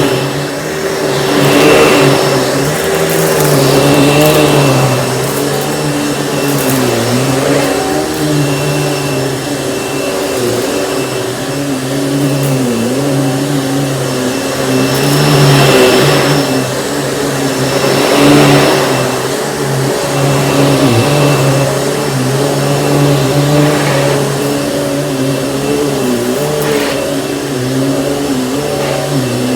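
Panasonic upright vacuum cleaner running on carpet, its motor pitch dipping and recovering again and again as it is pushed back and forth, with a few louder rushes of air along the way.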